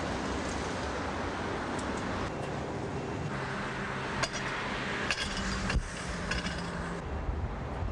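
Location sound beside a stationary W-class tram: a steady low hum and street noise, broken by a few sharp clinks and knocks in the middle.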